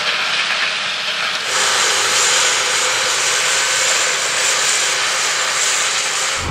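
Versatile 315 tractor working in the field, pulling a disc cultivator and roller: a steady, loud rush of engine and machinery noise. The sound shifts abruptly about a second and a half in, turning brighter and hissier.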